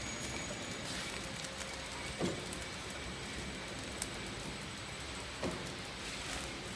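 Horizontal pillow-type flow-wrapping machine running with a steady mechanical hum, and a couple of short thumps from its mechanism.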